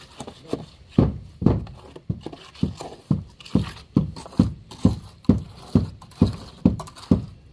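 Rubber mallet tapping the underside of a wooden stair form full of freshly poured concrete, about two dull knocks a second. The tapping consolidates the concrete, working aggregate and air bubbles out of the mix.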